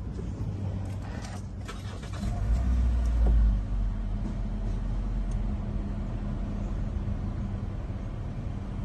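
Toyota Wish's 1.8-litre four-cylinder engine idling at about 1000 rpm, heard from inside the cabin as a steady low hum. A few clicks come about a second in, and a stronger low rumble swells from about two seconds in and eases off a second later.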